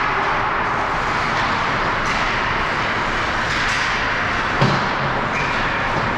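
Hockey game rink noise: a steady hiss of play and arena sound, with a single thud about four and a half seconds in.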